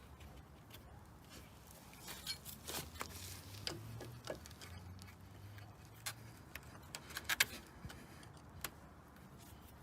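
Scattered light metallic clicks and clinks of tools and brake parts being handled during work on a car's front brake caliper, with a cluster of quick clinks a little past the middle. A faint low hum runs through the middle few seconds.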